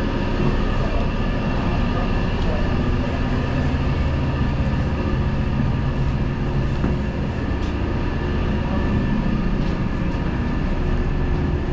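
Steady drone of a fishing vessel's engines and machinery, a low rumble with several constant hum tones, with a few faint ticks.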